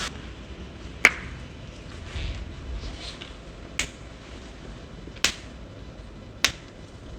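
Four sharp joint cracks, the popping of spinal joints under chiropractic manipulation. The first crack, about a second in, is the loudest, and the others follow one to three seconds apart.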